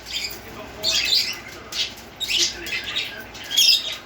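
A pet bird making harsh, raspy squawks, four in a row about a second apart.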